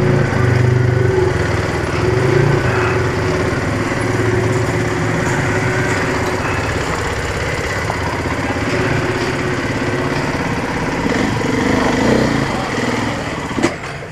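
Dirt bike engine running at low revs as the bike creeps over rocks, the throttle rising and easing off. The engine note dips briefly near the end.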